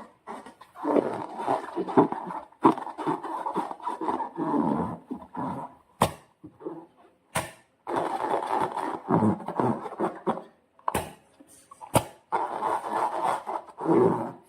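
Slime and rubber balloons being squeezed and handled: irregular runs of squelching and rubbing a second or two long, with a few sharp clicks in between.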